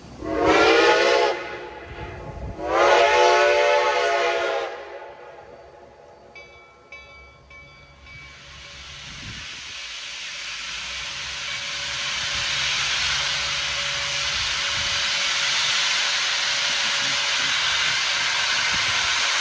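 Steam locomotive whistle sounding two blasts, the second longer, the signal to proceed. From about eight seconds in, a hiss of escaping steam swells and holds as the T-1 4-8-4 starts away with its cylinder cocks open to clear water from the steam chest.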